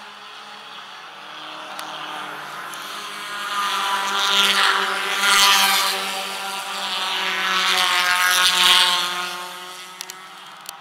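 Four-cylinder stock car race cars running past on a short oval track, their engines swelling louder and fading away twice, about four and about eight seconds in.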